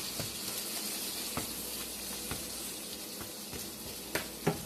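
Ground meat sizzling as it browns in a nonstick frying pan, with a steady hiss. A slotted plastic spatula taps and scrapes the pan a handful of times as it breaks up the meat, and the sharpest taps come near the end.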